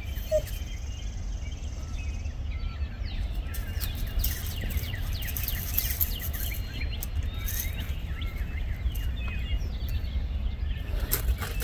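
Many songbirds chirping and calling at once in a morning chorus, short quick notes overlapping throughout, over a steady low rumble.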